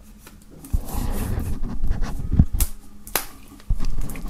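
Plastic shrink-wrap being cut with a knife and peeled off a boxed case: crinkling and rustling starting about a second in, with sharp clicks and a knock, a brief pause, then more crinkling.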